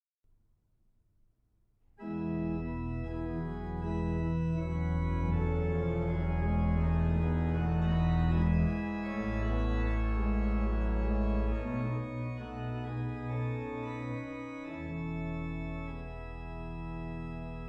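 Sampled pipe organ (Hauptwerk virtual organ, St Anne's Moseley sample set) playing sustained chords over a deep pedal bass, starting about two seconds in.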